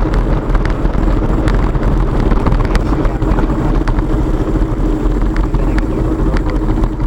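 KTM motorcycle engine running steadily at riding speed, heard from on the bike with a heavy low rumble and many small ticks and knocks scattered through it.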